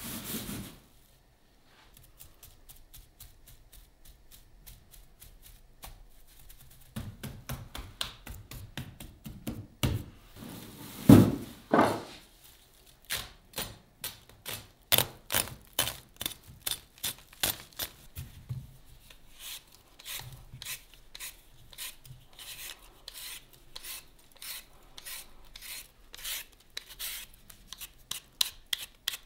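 Heavy thumps of a full sack of potatoes set down on a wooden table. Then, from about halfway in, quick repeated scraping strokes: a knife cutting open the plastic mesh sack, and a vegetable peeler stripping skin off a potato.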